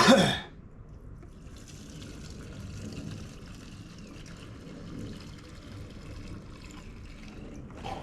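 Fresh gasoline pouring and trickling steadily into a push mower's fuel tank, refuelling it after a carburettor cleaning. A short, loud sound comes right at the start.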